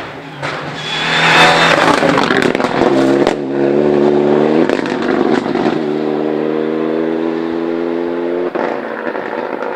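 Rally car passing close at speed on a tarmac stage, then accelerating hard away. The engine note rises, drops off briefly about halfway through, then rises again.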